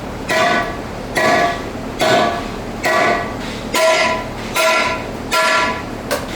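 Hammer striking a metal wheel rim in a steady rhythm, about seven blows a little under a second apart. Each blow leaves the rim ringing briefly with a clear bell-like tone, as a fitting is knocked loose so it bends up in the middle and comes off.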